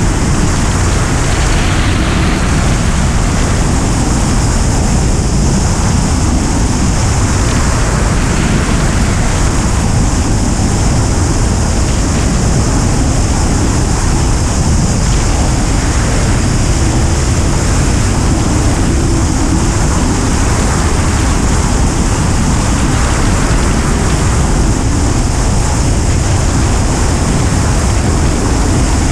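Steady, loud rush of wind over a wing-mounted camera's microphone on a Duo Discus glider in flight under aerotow.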